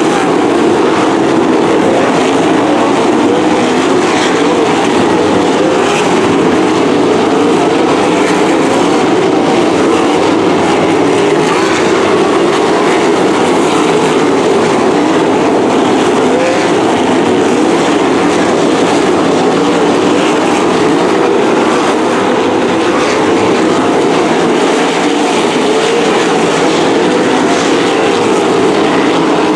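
Several non-winged sprint cars' V8 engines running hard together on track, one continuous loud mechanical sound with no break.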